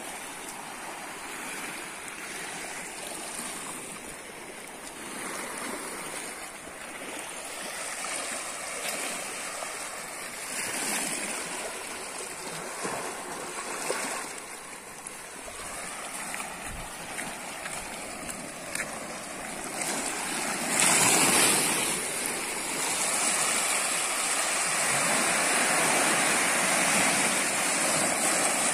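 Small sea waves washing in over a rocky shore, rising and falling in loudness, with a bigger surge of surf about three quarters of the way through after which the wash stays louder.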